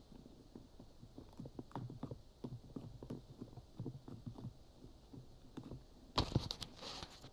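Homemade slime being squeezed and stretched by hand, giving soft, irregular squelches and small clicks, with a louder crackling burst about six seconds in.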